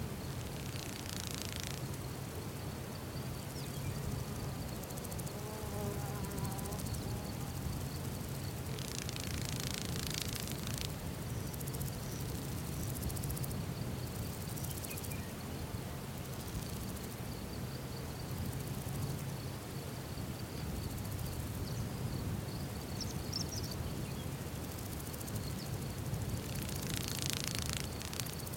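Outdoor insect sounds: a steady high-pitched insect trill, and flies buzzing close past three times, about a second in, around ten seconds in, and near the end. Underneath runs a low steady rumble.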